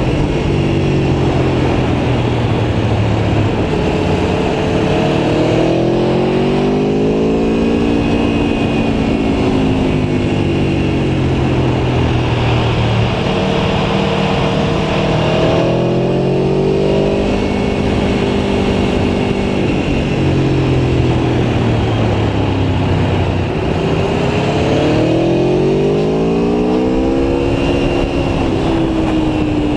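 Aprilia Tuono V4 1100 Factory's V4 engine being ridden, its note holding steady for stretches and then revving up several times as the bike accelerates, over a steady rush of noise.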